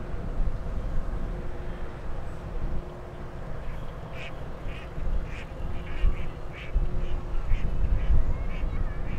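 Waterfowl calling: a run of short calls, about two a second, starting a few seconds in, over a steady low rumble.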